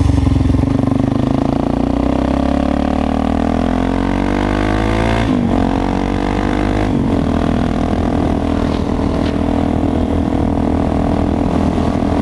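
Suzuki DR-Z400 supermoto's single-cylinder engine under way. The revs climb for about five seconds, drop sharply twice, about five and seven seconds in, then hold steady.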